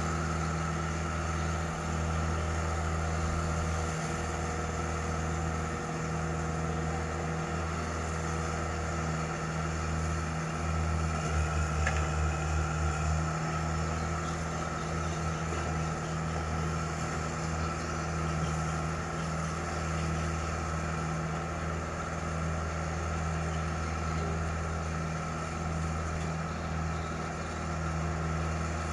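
Heavy diesel engine of a tracked excavator running steadily with a low, even hum. It is briefly louder with a fast throb about eleven seconds in.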